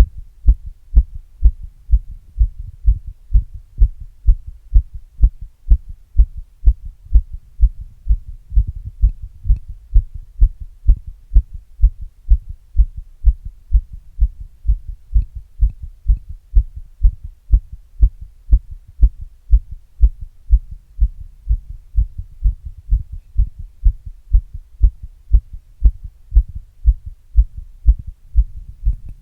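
A person's heartbeat picked up by a microphone held against the chest: a steady, even rhythm of short low thumps over a faint low hum.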